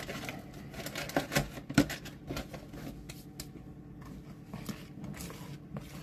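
A spoon stirring thick icing in a bowl: irregular scrapes and light clicks, with one louder knock about two seconds in, over a faint steady hum.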